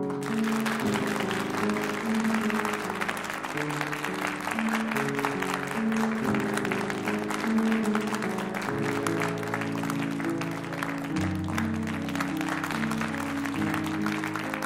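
Music with sustained low notes, under a dense crackling noise that comes in suddenly at the start and carries on throughout, like an audience applauding at a live performance.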